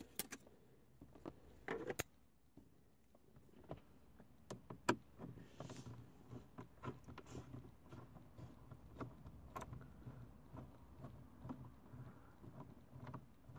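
Faint irregular clicks and light scraping as a hand-turned Phillips screwdriver backs a screw out of a car's plastic dashboard trim.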